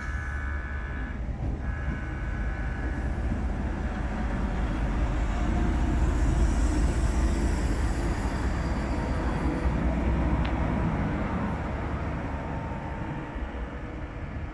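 Two coupled Vossloh G1206 diesel-hydraulic locomotives passing at low speed: a steady diesel engine rumble that swells as they draw level and fades as they pull away, with wheel-on-rail noise near the loudest point.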